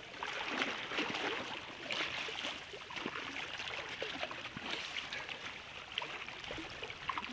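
Quiet water lapping and trickling at a rocky shore, with many small crackles and rustles over it.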